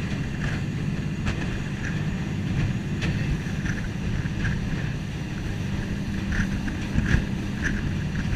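Jet boat's engine running steadily under way, with wind on the microphone and short bursts of water noise recurring about twice a second.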